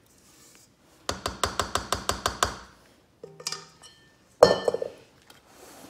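Metal kitchenware clinking: a quick run of about ten ringing metallic taps, a few softer clicks, then one louder clang that rings on and fades. It comes as a stainless steel mixing bowl and metal cake pans are handled on the counter.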